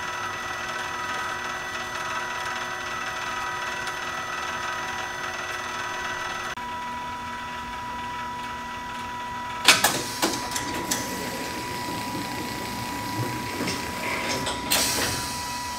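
Gribetz quilting machine and automatic panel cutter running, with a steady mechanical hum and fixed whining tones. About ten seconds in there is a sharp clack followed by a few rattling clicks, with more clicking near the end.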